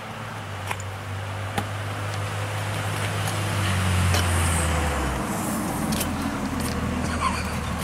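A car passing on the road, its low engine and tyre rumble building to a peak about four seconds in and then easing off.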